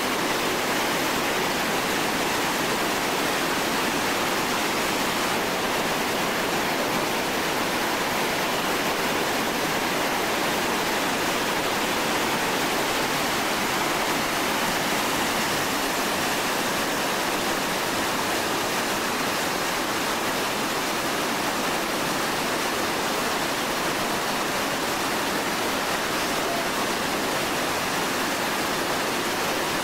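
Whitewater rapids rushing over and around large boulders, a steady, unbroken rush of water.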